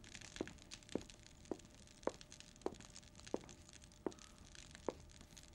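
A faint series of short knocks or taps at an even, slightly slowing pace, about one every two-thirds of a second.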